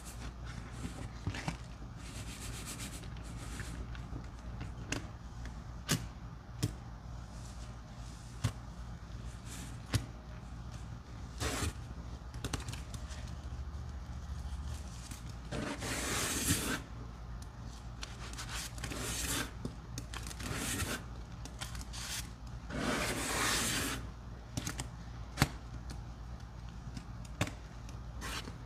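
Sponges loaded with a thick, fluffy soap and baking-soda paste being squeezed and rubbed: soft wet squishing with scattered sharp clicks, and two longer squeezes, one a little past the middle and one about four-fifths of the way through.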